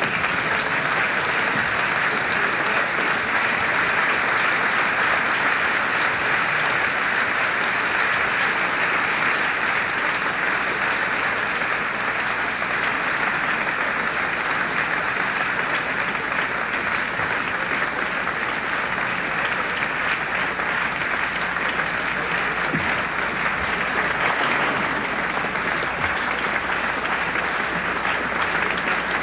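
Large audience of hundreds applauding, a dense, steady clapping.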